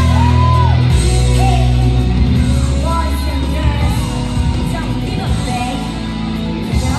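Loud music for a cheer-squad routine, with a heavy steady bass and a vocal line over it.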